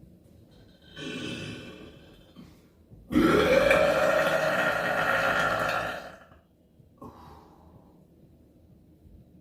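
A person burping on purpose: a shorter burp about a second in, then a long, loud burp of about three seconds whose pitch rises at the start.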